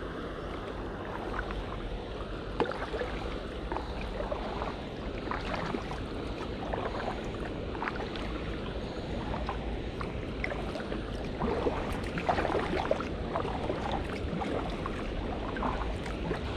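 Kayak paddle strokes dipping and splashing at irregular intervals, over a steady rush of river water flowing fast toward a bridge.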